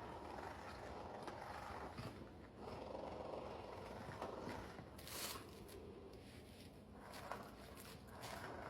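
A dog growling low and on and off at a moving toy ball, with a few light knocks.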